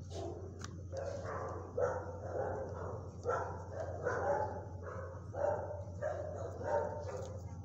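A dog barking repeatedly, about two barks a second, starting about a second in, over a steady low hum.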